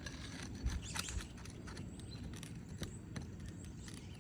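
A few sharp clicks and knocks with light scraping: a metal roofing tool working against asphalt shingles. The loudest knocks come a little under a second in, with a couple more about three seconds in.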